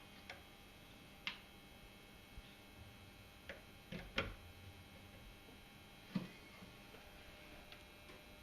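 A handful of light, irregular knocks and clicks, the loudest about four seconds in, over a faint steady hum.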